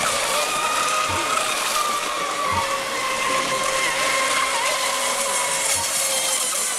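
Several RC racing boats running flat out, their motors giving a steady whine that wavers slightly in pitch, over the hiss of the spray off the hulls.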